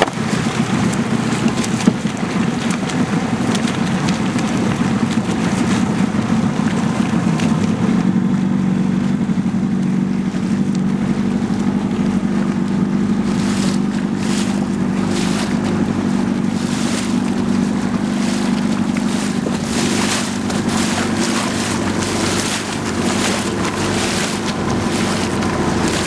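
Motorboat engine running steadily, with water rushing past the hull and wind on the microphone; from about halfway, short gusts of noise come and go.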